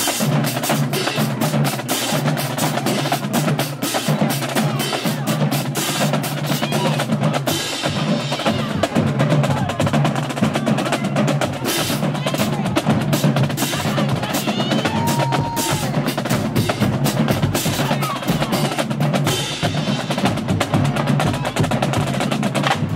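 Marching band drumline playing a cadence on snare drums, dense rapid strokes and rolls going on without a break.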